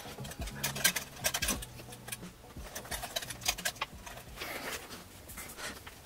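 Irregular clicks, taps and scrapes as a CPU tower cooler's metal heatsink and its mount are handled and worked into place inside a computer case, with cables brushing against it.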